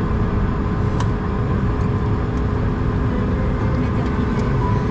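Airbus A220 cabin noise while taxiing: its Pratt & Whitney PW1500G geared turbofans running at idle as a steady rumble with a couple of steady tones, and a light tick about a second in.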